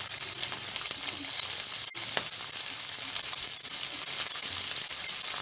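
Sliced onions sizzling as they fry in hot oil with chana dal and urad dal in a kadai: a steady frying hiss, with a light tick about two seconds in.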